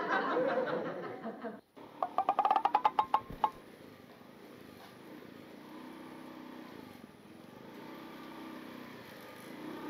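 A voice briefly, then a quick run of sharp clicks, then a motorcycle engine idling steadily.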